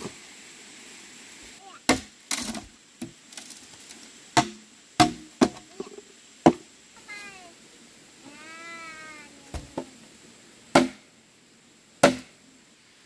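Chopping strikes on wood, about eight single blows at uneven spacing. A cat meows twice around the middle, the second call longer and drawn out.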